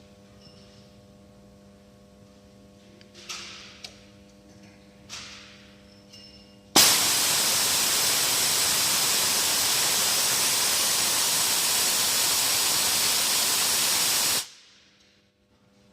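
Seam welding machine's welding arc running in a loud, even hiss for about seven and a half seconds, switching on abruptly about seven seconds in and cutting off sharply near the end. A faint steady machine hum lies under it.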